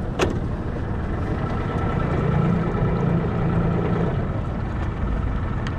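A boat engine running steadily at low revs, with one sharp knock just after the start.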